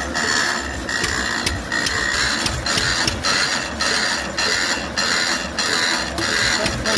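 Restored Merit hot-tube ignition stationary engine running slowly, with a regular beat of about two strokes a second and a hiss pulsing between the beats.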